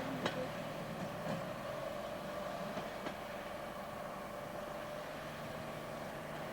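Steam engine hissing with a steady, slowly rising tone, and a few sharp clicks in the first three seconds.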